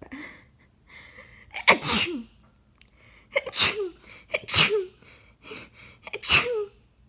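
A woman sneezing four times in quick succession in a sneezing fit, with short breaths drawn in between. Each sneeze ends in a voiced sound that falls in pitch.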